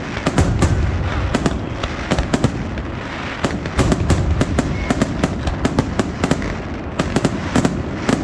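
Fireworks display: rapid, continuous crackling and popping of many shells bursting, over a steady low rumble of booms.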